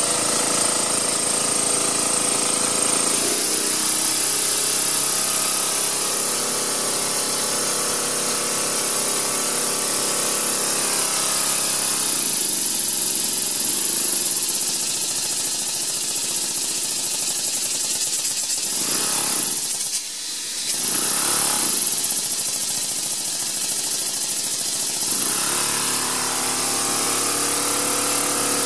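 Small homemade steam engine running under steam from its boiler, with a loud steady hiss of escaping steam and a fast mechanical running chatter. The lower running sound thins out for a stretch in the middle while the engine's valve is being worked, then comes back near the end.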